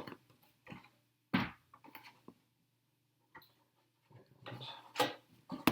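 Scattered light clicks and knocks of small plastic RC truck parts and screws being handled and fitted, with a sharper knock about a second and a half in and a busier patch of handling clicks near the end.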